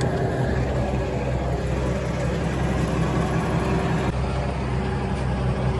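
Kenworth semi truck's diesel engine idling steadily, a low even hum.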